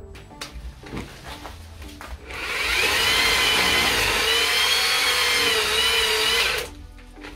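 Chainsaw running at high speed and cutting into a tree trunk for about four seconds, starting about two seconds in and stopping shortly before the end, its pitch dipping and rising slightly as it bites.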